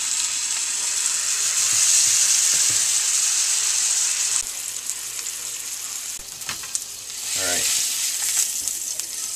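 New York strip steak sizzling as it sears in hot oil and butter in a stainless steel frying pan. The sizzle drops about halfway through and grows louder again near the end as the steak is moved with tongs.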